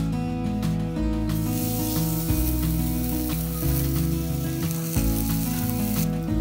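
Raw pork chop sizzling as it is laid into a hot cast-iron grill pan; the sizzle starts about a second in and cuts off near the end. Background music with a stepping bass line plays throughout.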